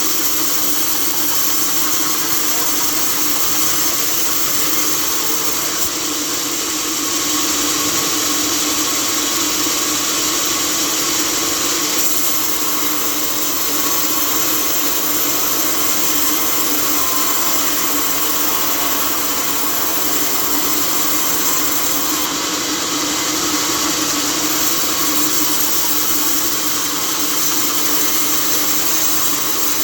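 Sawmill saw cutting through a log: a loud, steady machine drone with a constant hum under the whine of the blade in the wood.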